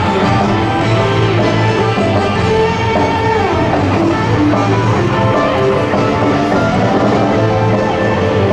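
Music with guitar at a steady level.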